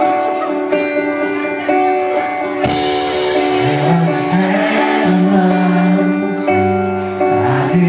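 Live pop-rock band playing the opening of a song, with held guitar chords; the arrangement shifts about a third of the way in and a voice starts singing a melody around the middle.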